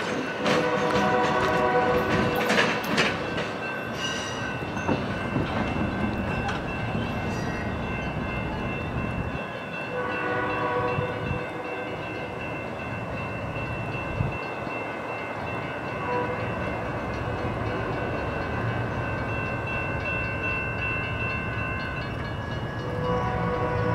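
Amtrak Coast Starlight's Superliner passenger cars rolling away over the track, wheels clicking over the rail joints for the first few seconds. A train horn chord then sounds in several long blasts from the distant locomotive over a steady rolling rumble.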